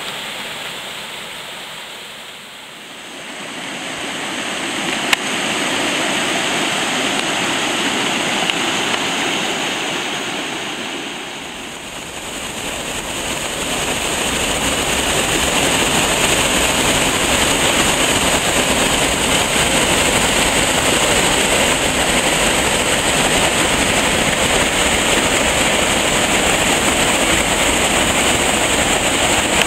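Rushing water of woodland cascades and a small waterfall running high after heavy rain, a steady noise. It dips briefly twice and grows louder and fuller after about twelve seconds.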